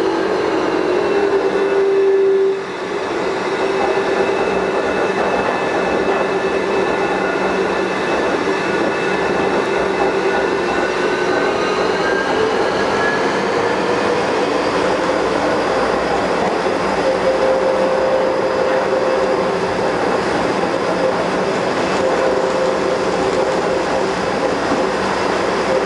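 A Bombardier rubber-tyred automated metro train running at speed, with a steady rolling noise and several whining tones that slowly shift in pitch. There is a brief dip in level about two and a half seconds in. The uploader counts this running noise as an abnormal sound that the train has developed with age.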